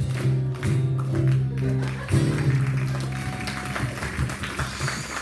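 Worship band with guitars and keyboard finishing a song: the last chords are held, a final chord is struck about two seconds in and rings out, and applause starts as it fades.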